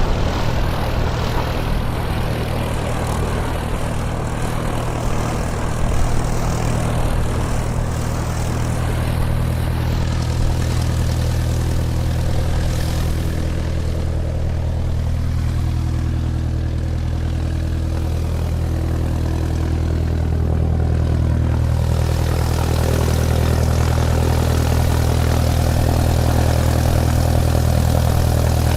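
Airplane taxiing: a steady engine drone with a strong low hum, growing slightly louder about two-thirds of the way through.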